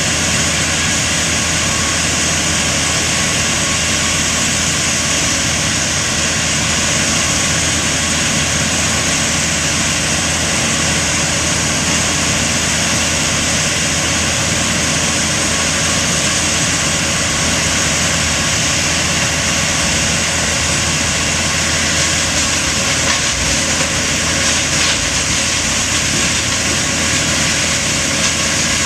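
A large engine running steadily, without a break.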